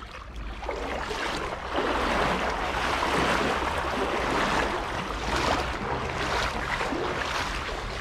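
Shallow river water rushing and splashing, a steady noisy wash that grows louder about two seconds in.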